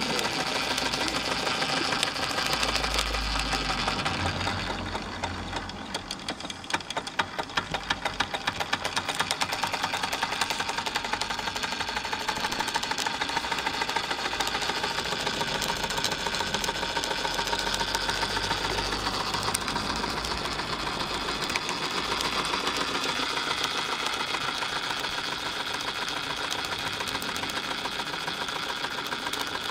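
Märklin 4122/11 vertical live-steam toy engine running fast: a rapid, even mechanical clatter with a steady steam hiss. The clicks stand out most sharply about six to nine seconds in.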